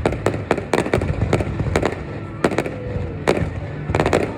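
Fireworks display, shells bursting in a rapid, irregular string of about a dozen sharp bangs over a continuous low rumble.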